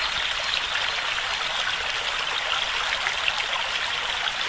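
Shallow stream running over stones in a steady rush of water, with small splashes through it.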